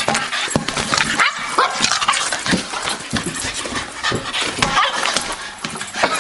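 A small dog gives a few short, high yips over a busy run of knocks and scuffs.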